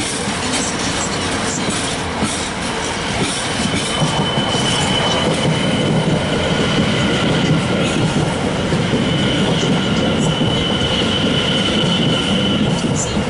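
Trains passing at a station: empty container freight wagons rumbling by with clicks of wheels over rail joints, then an electric passenger multiple unit running close along the platform. A thin, steady high wheel squeal runs from about four seconds in until near the end.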